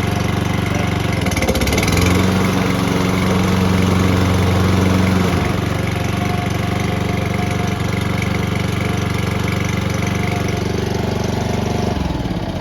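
A walk-behind lawn mower's small four-stroke engine running, now that its carburetor jets have been cleaned of fuel gunk. It picks up speed about two seconds in, drops back about five seconds in, and winds down near the end as it is shut off.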